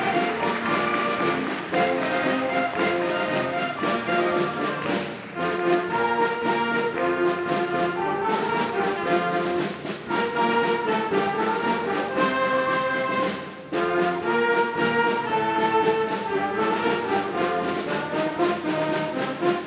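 Student concert band of woodwinds and brass playing, held notes in phrases with short breaks between them.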